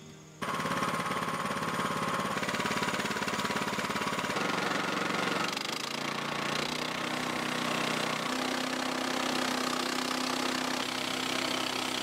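Harbor Freight band sawmill running: its gas engine runs steadily with a fast pulsing beat while the band blade cuts through a log. The engine note steps a few times, about four, six and eight seconds in, as the load changes.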